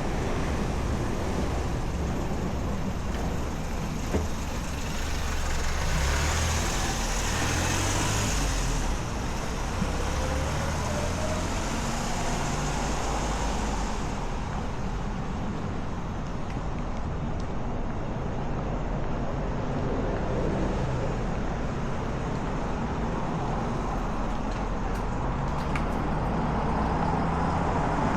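Street traffic: motor vehicles passing with a continuous low rumble and tyre noise. One passes louder about six to nine seconds in, and another approaches near the end.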